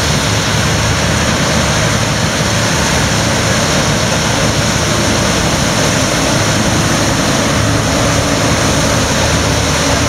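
Claas Lexion combine harvesters running steadily while cutting and threshing rapeseed, a constant loud engine and machinery noise as the nearest combine passes close.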